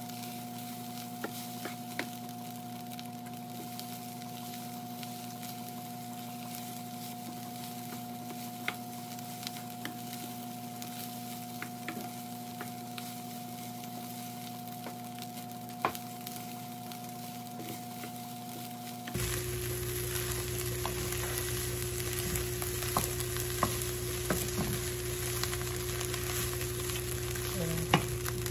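Fried rice sizzling in a nonstick frying pan as it is stirred and turned with a wooden spoon, with occasional sharp clicks of the spoon against the pan. A steady hum sits underneath; about two-thirds of the way through it changes pitch and everything gets louder.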